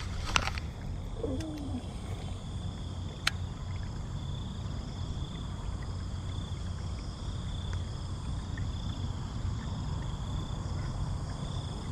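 Dusk ambience at a pond: a steady high-pitched drone of insects over a low rumble. A quick swish comes right at the start as a baitcasting rod is cast, and a brief low call follows about a second later.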